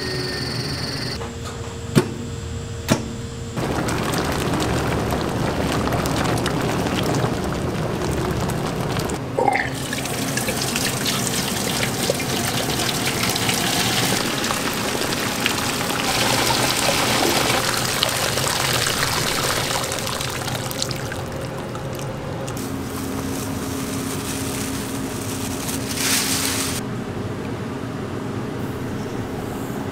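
Ground bean liquid pouring and splashing from a stainless steel grinder spout and through a perforated metal strainer, a steady rushing pour that stops and restarts abruptly several times. Two sharp knocks come a second apart near the start.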